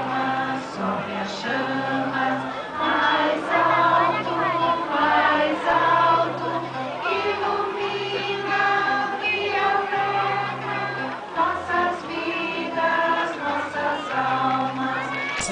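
A group of voices singing together as a choir, over held low notes that step between pitches every second or so.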